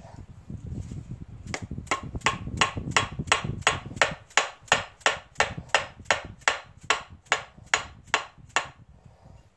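Steady hammer blows, about twenty in a row at a little under three a second, driving the pinion drive shaft out of a Wildcat 1000's steering rack-and-pinion gearbox housing. They begin about a second and a half in and stop shortly before the end.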